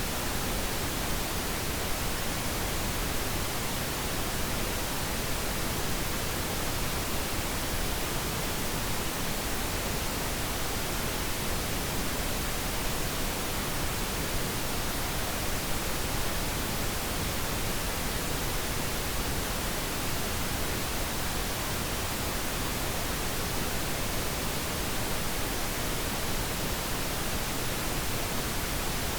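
Steady pink noise: an even, unchanging hiss spread across the whole range of pitches, used as a sleep sound.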